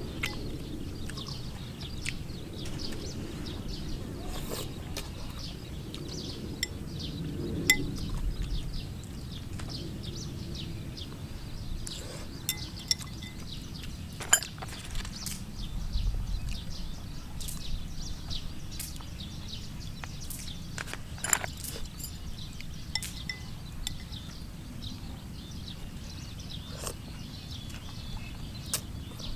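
Metal chopsticks clinking and tapping against a bowl at scattered moments, with eating sounds, over a steady low background rumble.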